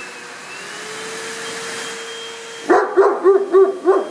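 A dog dryer's blower runs with a steady whine. About two-thirds of the way in, a large dog barks five times in quick succession.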